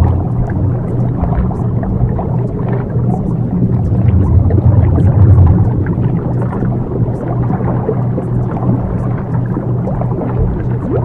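Subliminal audio track: a steady low drone with a dense rumbling wash over it and no audible words, the delta-wave background that masks the recorded affirmations.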